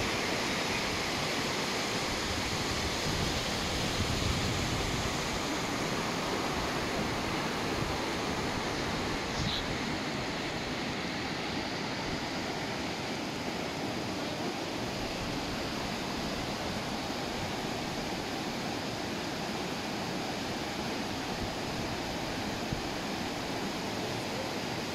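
Mountain river rushing over boulders in a gorge: a steady rush of whitewater.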